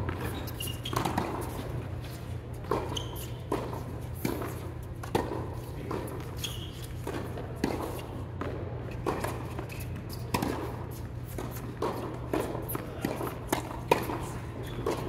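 Tennis balls struck by racquets and bouncing on an indoor hard court: a run of sharp pops, about one every second or so, echoing in a large hall over a steady low hum.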